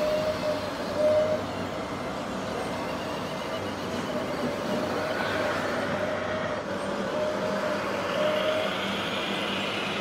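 Steady whine of small motors and gearing running, probably radio-controlled model machinery, over a noisy rumble. A fainter, higher whine rises slightly near the end.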